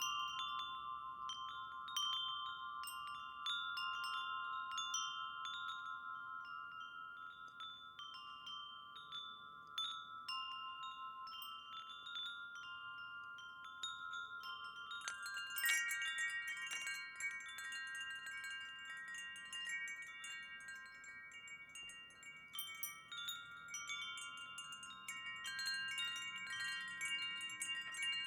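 Wind chimes ringing in irregular, overlapping strikes, each tone hanging on. About halfway through, higher tones join and the chiming gets busier, with one louder strike.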